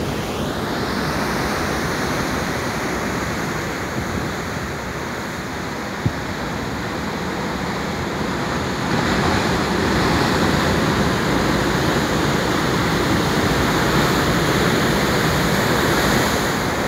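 Heavy ocean surf breaking and washing over rocks at the foot of a cliff: a steady rush of white water that swells louder about nine seconds in.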